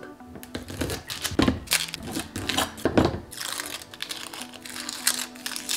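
Peeling and cutting shallots with a chef's knife on a cutting board: dry, papery skins crinkling and tearing, with a run of short knocks from the knife against the board. Background music plays underneath.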